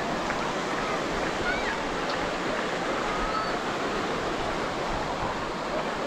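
Steady wash of ocean surf breaking on a beach, with faint distant voices of people on the sand now and then.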